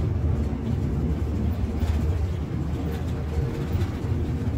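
City bus driving along a road, heard from inside near the front: a steady low rumble of engine and road noise.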